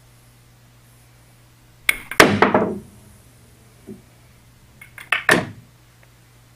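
A pool cue strikes the cue ball about two seconds in, followed by a quick run of sharp billiard-ball clacks. A second cluster of ball clicks comes about three seconds later, as the shot plays out and a ball ends up in a corner pocket.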